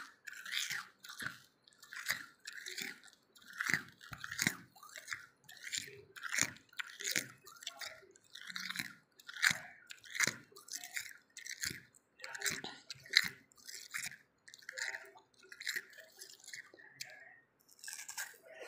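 A person chewing crunchy milky ice close to the microphone, with sharp crunches coming about one to two a second throughout.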